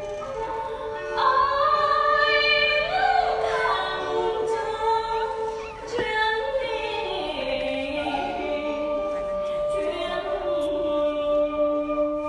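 A female chèo singer singing a traditional Vietnamese melody in long held notes with vibrato and sliding pitch, over a small traditional ensemble's accompaniment.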